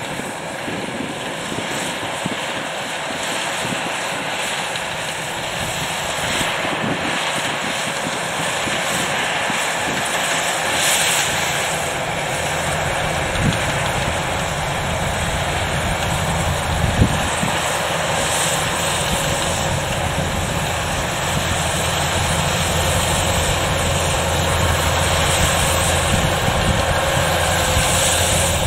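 Kubota DC-105X rice combine harvester running steadily as it cuts and threshes, growing louder as it draws closer, with two short knocks about halfway through.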